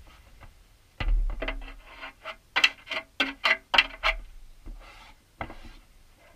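Background music: a run of short plucked notes over a deep low thump begins about a second in, after a second of faint room noise.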